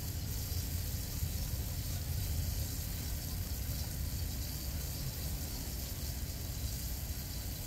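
Steady low rumble of an idling engine, with a steady high hiss over it.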